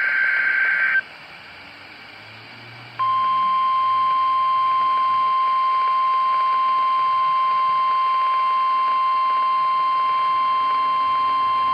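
NOAA Weather Radio emergency alert signalling: the end of a buzzy EAS header data burst about a second in, a two-second pause, then the steady 1050 Hz warning alarm tone from about three seconds in.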